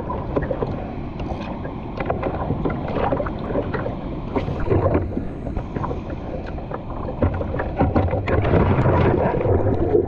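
Ocean water splashing and lapping against a surfboard, with wind on the microphone. The splashing is irregular and grows louder over the last couple of seconds.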